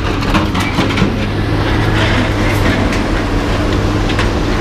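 An engine running steadily, with repeated metal clanks and rattles over it.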